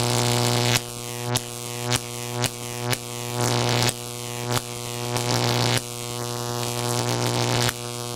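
A buzzy synthesizer drone held on one low note, cut off and struck again every half second or so, then stopping abruptly.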